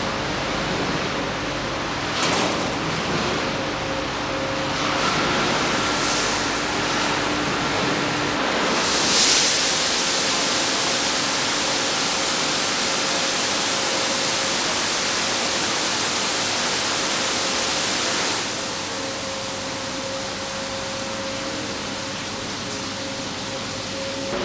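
ITEC industrial cabinet washer running a wash cycle: water jets spraying wire racks inside, a steady hiss over a faint machine hum. The spray gets louder and brighter about nine seconds in and drops back a little after eighteen seconds.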